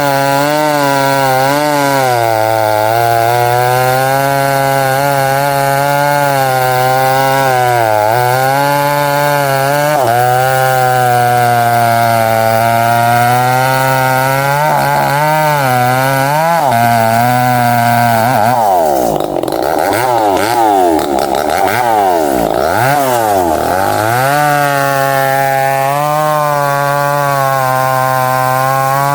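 Chainsaw engine running at high speed while cutting into a thick tree trunk, its pitch dipping and recovering as the chain bites. A little over halfway through, the engine speed swings sharply up and down several times, then settles back into a steady cut.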